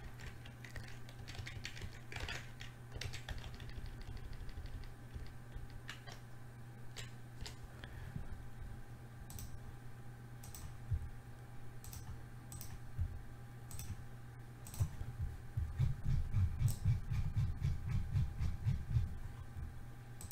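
Computer keyboard and mouse clicking at uneven intervals over a steady electrical hum. Near the end comes a quick run of soft low thumps, the loudest part.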